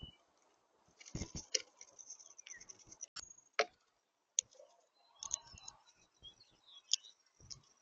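Irregular sharp clicks and taps at a backyard bird feeder, with two low thumps, one about a second in and one near the end. Short, faint, high chirps from small birds come in between.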